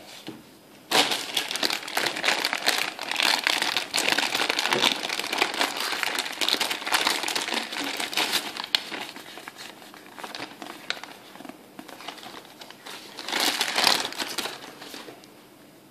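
Clear plastic toy bag crinkling as hands work a toy out of it. The crackling starts about a second in and runs densely, eases off, then comes again in a second burst near the end.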